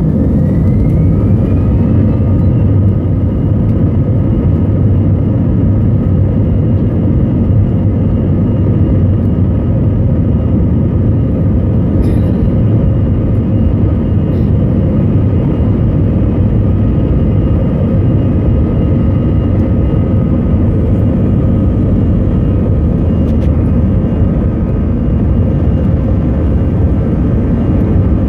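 Airbus A321 jet engines at takeoff thrust, heard inside the cabin during the takeoff roll: a loud, steady roar with a deep rumble and a faint engine whine. A whine rises in pitch over the first two seconds as the engines spool up.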